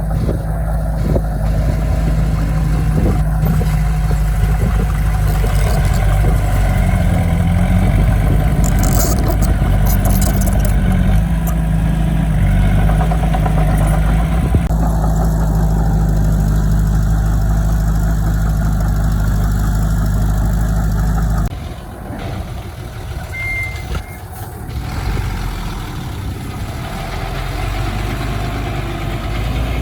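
Diesel engines of heavy earthmoving equipment (bulldozer and dump trucks) running loud and steady. About two-thirds through the sound drops suddenly to a quieter engine.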